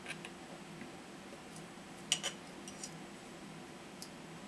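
Light clicks and taps of small flush cutters working at wires in a 3D-printed plastic case, the sharpest a quick double click about two seconds in, over a faint steady hum.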